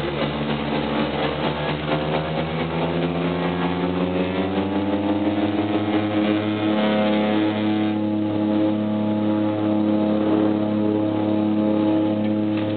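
Light aircraft's piston engine and propeller heard from inside the cabin, powering up on the take-off roll: the drone rises in pitch over the first several seconds, then holds steady at full power.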